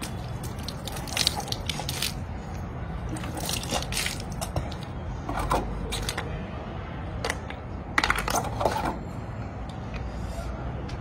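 Water splashing and a plastic mug clunking as it is dipped, poured and set down, heard as a handful of sudden splashes and knocks with the loudest cluster about eight seconds in, over a steady low rumble.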